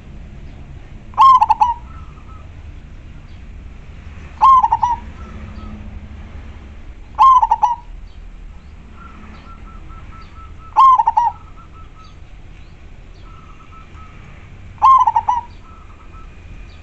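Zebra dove (perkutut) singing: five short, loud cooing phrases, each about half a second, spaced three to four seconds apart.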